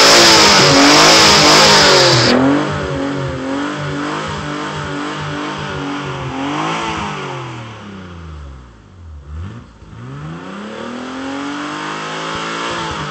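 Nissan 300ZX V6 engine being revved up and down repeatedly while it burns off a Seafoam treatment, dropping almost to idle about nine seconds in before climbing and falling once more. A loud high hiss sits over the first two seconds and cuts off suddenly.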